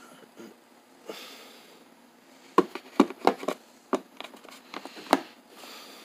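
Snap ring pliers clacking against each other and the plastic carry case as they are handled and set back in the moulded tray: a run of about six sharp clicks starting about halfway through.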